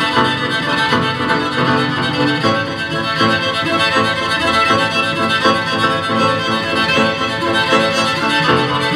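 Live piano trio of grand piano, violin and cello playing, with quick repeated notes in the lower strings and piano.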